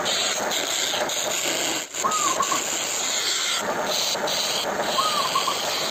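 Homemade wood lathe powered by a salvaged water-pump motor, running while a chisel cuts the spinning wood: a steady rasping hiss.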